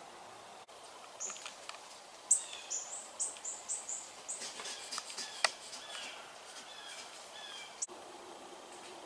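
Songbird calling in woodland: a quick run of high, falling chirps about two seconds in, then softer chirps mixed with a few sharp clicks.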